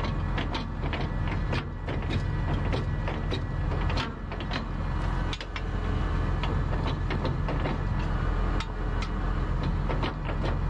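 Tractor engine idling steadily, with irregular sharp metallic clicks and knocks from parts of a seed drill being folded up by hand.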